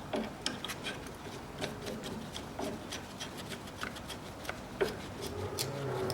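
Light metallic clicks and rubbing, scattered and irregular, as nuts are threaded by hand onto the ball-joint studs of a new front anti-roll bar link.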